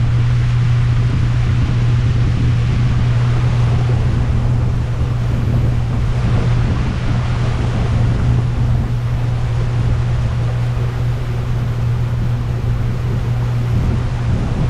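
Boat motor running steadily at cruising speed, a constant low hum, with the rush of water and wind as the boat moves along the river.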